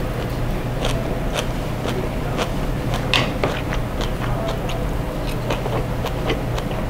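Close-up chewing and biting of food, with short clicks of metal chopsticks against a plate, over a steady low hum.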